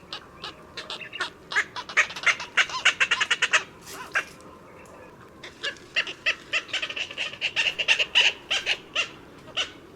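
Indian cormorants calling: two bouts of short calls in quick succession, several a second. The first bout lasts about three seconds and the second, starting about half-way through, about four.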